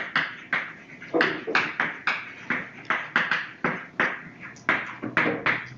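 Chalk writing on a blackboard: a quick run of short, sharp chalk strokes and taps, about three or four a second.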